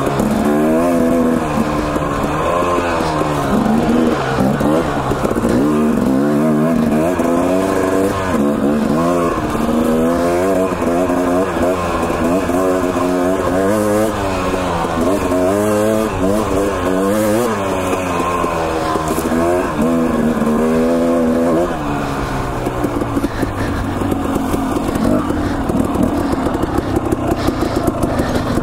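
Husqvarna TE250 two-stroke dirt bike engine under way, revving up and down over and over as the throttle is worked. About two-thirds of the way through the revs settle lower and steadier, turning choppier near the end.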